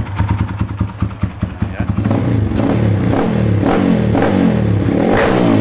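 Kawasaki KLX single-cylinder four-stroke motorcycle engine running with a rapid, even idle for about two seconds, then revved up and down several times with the throttle while its freshly cleaned carburettor is being set.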